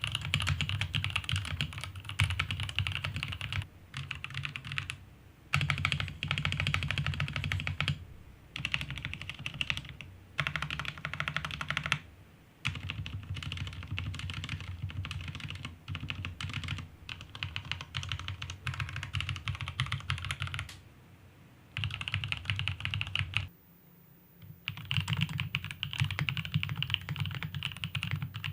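Fast typing on a Mucai MK680H 65% mechanical keyboard with Outemu red linear switches, modded with EVA rubber case foam, Poron switch pads and re-greased stabilizers, giving a muted, deep keystroke sound. The typing comes in runs of a few seconds with brief pauses between them.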